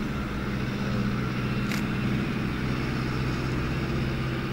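An engine running steadily, an even low hum with no revving.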